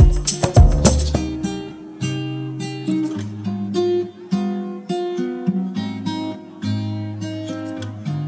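Background music: acoustic guitar strumming and plucking chords, with a drum beat that drops out about a second in.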